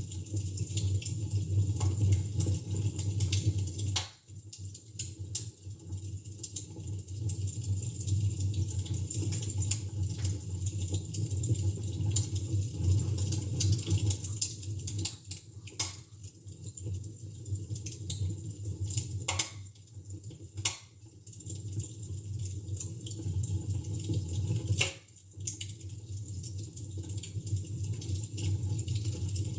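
Fire in a fireplace crackling: a steady low rumble with irregular small pops and clicks, and a handful of sharper, louder snaps a few seconds apart.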